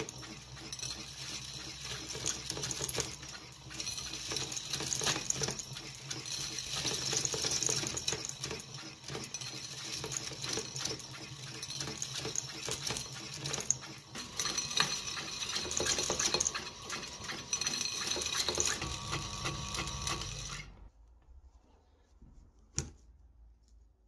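Roulomat Senior 60 coin-counting machine running: its motor runs while coins rattle and click rapidly through the spinning bowl and counting head. It cuts off suddenly a few seconds before the end, then one sharp click follows.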